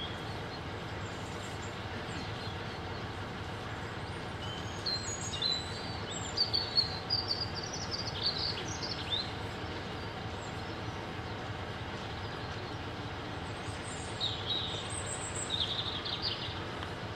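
Small birds chirping in short bursts, several about a third of the way in and again near the end, over the steady low rumble of a stationary diesel locomotive idling.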